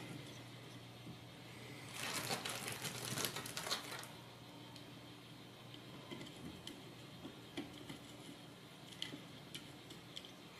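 Small handling noises as a circuit board and metal spacers are fitted by hand onto a stainless-steel robot chassis: a cluster of light clicks and rattles about two to four seconds in, then scattered faint clicks.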